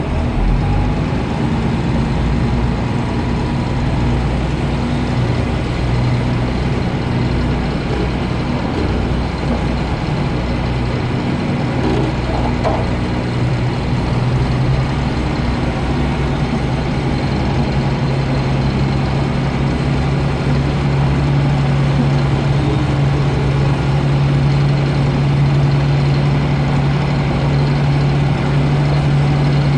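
Vehicle engine running steadily at low speed, with a low hum that rises slightly in pitch and gets a little louder after about twenty seconds.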